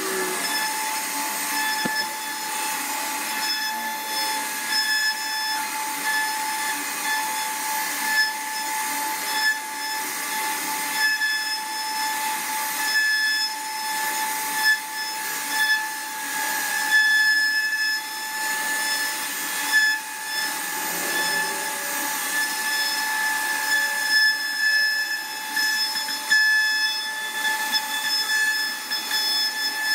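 CNC router spindle running with a steady high whine while its bit carves wood. The cutting noise swells and eases irregularly as the bit moves through the cut.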